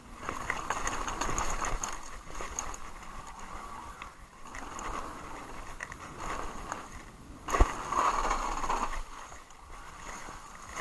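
Haibike SDURO mountain bike rolling fast downhill over a dirt and leaf-covered trail: tyre noise with steady rattles and clicks from the bike. A single sharp knock comes about seven and a half seconds in, followed by louder rolling noise for about a second and a half.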